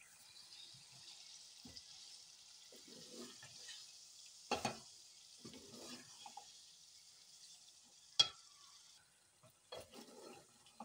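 Thin beef slices sizzling in hot oil and spice masala while being stirred with a wooden spatula in a metal pot. The spatula scrapes and knocks against the pot, with a sharp knock about four and a half seconds in and another about eight seconds in. The sizzle dies down near the end.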